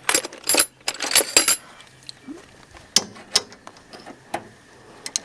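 Steel sockets clinking and ringing against each other as they are rummaged through to find the right size, then a few isolated clicks and taps.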